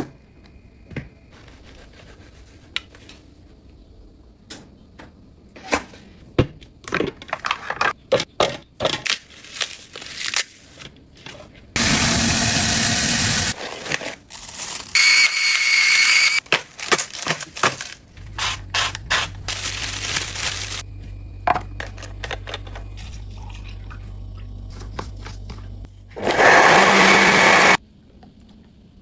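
Kitchen food-preparation sounds: scattered clicks and clatter, several loud rushing stretches of a second or two, and a steady low hum for about eight seconds in the second half.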